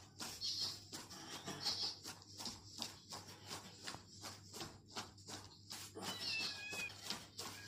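Cat confrontation with an irregular run of clicking or tapping sounds. About six seconds in there is a short, high cat mew that falls in pitch.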